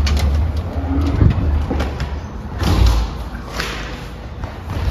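Metal-framed glass entrance doors being pulled open and swinging shut, with two heavy thuds about a second and a half apart and a few lighter clicks from the door hardware, over a low rumble.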